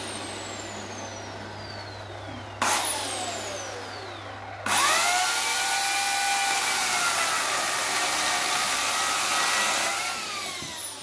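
New McAllister chainsaw on its first test cut into a log: two short bursts of the motor, each dying away in a falling whine, then a steady run of about five seconds as the chain cuts through the wood, winding down near the end as the cut finishes.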